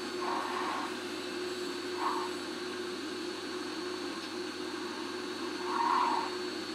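Hot-air rework station handpiece blowing steadily, its fan giving a constant hum with a thin high whine, as it preheats a multi-layer circuit board. A few short higher-pitched sounds come over it, the loudest near the end.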